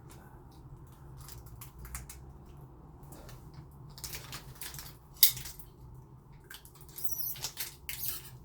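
Small clicks, taps and scrapes of lock hardware being handled, with one sharp click about five seconds in and a quick run of clicks near the end.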